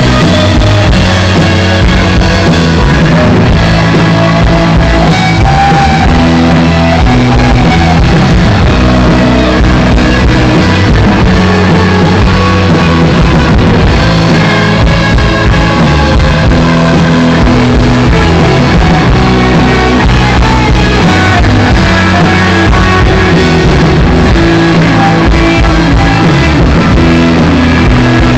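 Rock band with electric guitars playing loud and without a break, recorded from the crowd on an iPhone microphone.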